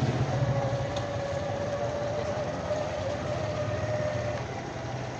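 Motorcycle engine running at low speed while riding, a steady low drone with a high whine over it that fades out about four seconds in.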